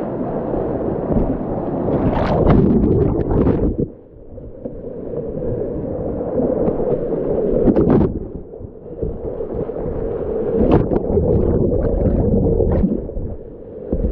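Whitewater rapids rushing close around a kayak, heard on a boat-mounted camera, with sharp splashes of paddle strokes at several points. The rushing dips briefly about four seconds in and again near the end.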